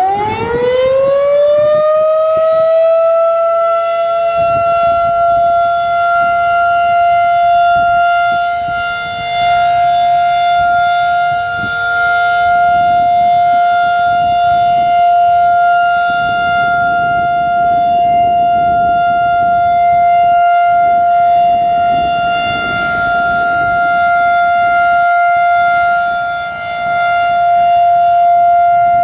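Federal Signal 2001-DC outdoor warning siren finishing its wind-up, its pitch rising and levelling off in the first couple of seconds, then holding the steady alert tone. Its loudness swells and dips a little as the rotating head turns.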